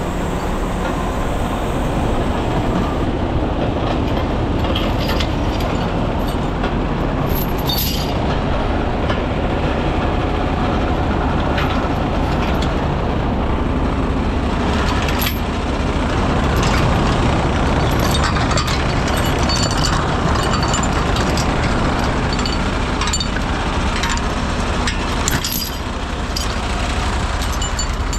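Heavy rotator wrecker's diesel engine running steadily, working its hydraulics to lower the boom, with scattered clicks and knocks.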